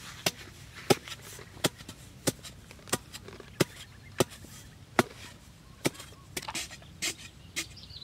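A hand digging tool chopping into hard, dry earth: about a dozen sharp strikes, roughly one every two-thirds of a second.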